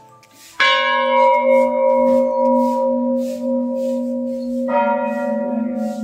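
Large brass temple bell struck twice, about four seconds apart. Each strike rings on long with several overtones and a wavering low hum that slowly fades.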